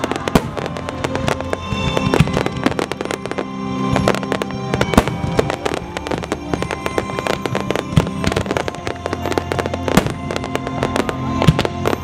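Dense fireworks barrage: a rapid, irregular run of bangs and crackles from shells bursting overhead, with the loudest reports about five, eight and ten seconds in. Music plays alongside.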